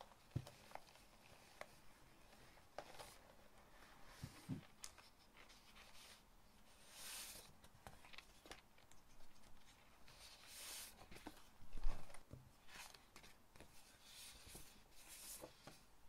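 Paper rustling as printed sticker sheets are slid out of a cloth tote bag and handled, with light taps and handling noises between the rustles. A louder thump comes about twelve seconds in.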